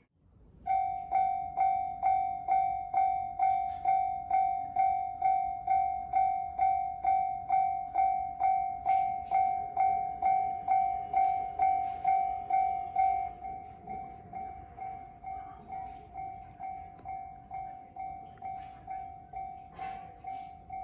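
Japanese railway level-crossing alarm sounding its electronic 'kan-kan' bell, an even two-tone ding repeating about twice a second. About two-thirds of the way through it drops sharply in volume and keeps ringing more quietly.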